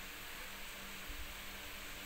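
Steady hiss with a faint electrical hum underneath, and a brief low bump about a second in.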